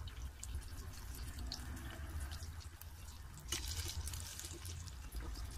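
Batter-coated cauliflower pakoras deep-frying in hot oil at medium heat: a steady sizzle full of small crackling pops, over a low hum. The crackling grows louder for a moment about three and a half seconds in.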